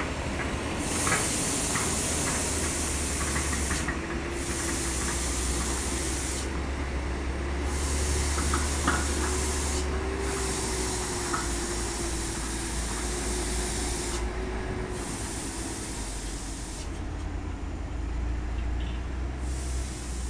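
Loaded dump truck working down a steep dirt track, its diesel engine running with a steady, slightly wavering drone under a loud hiss that cuts out briefly several times. A few faint knocks come through.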